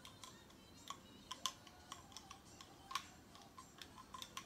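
Faint, irregular clicks of a small spoon knocking and scraping against the neck of a plastic bottle as thick slime is scooped out of it.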